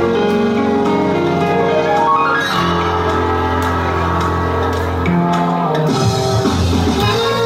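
Recorded pop song playing as dance music, with a held bass line and sustained instrumental notes, at a steady loud level.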